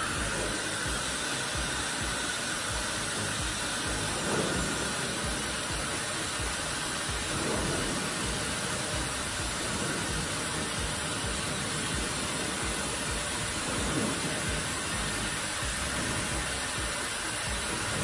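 Dyson Supersonic hair dryer running steadily, a constant hiss of rushing air that swells briefly a few times.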